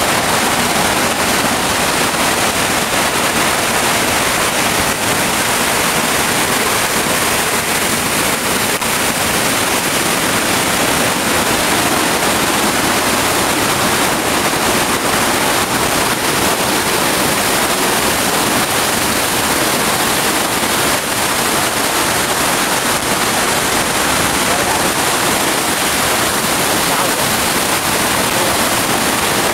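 Large waterfall heard from right at its base: a loud, steady rush of falling water crashing onto rocks, unbroken throughout.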